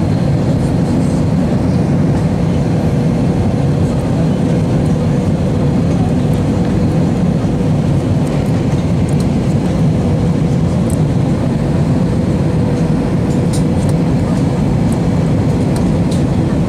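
Airbus A320 cabin noise on approach: the steady low rush of airflow and engines, with a faint steady hum above it. A few faint clicks come near the end.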